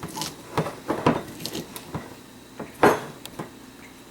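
Kitchen clatter: about six separate knocks and clinks of a jar and utensils being handled while sliced peppers and vegetables are packed into the jar, the loudest knock about three seconds in.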